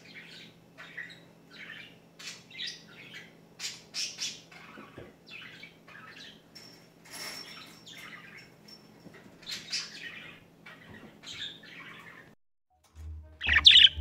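Budgerigars chirping and chattering in a rapid string of short, varied calls and squawks. The calls break off briefly near the end, and a single louder call follows.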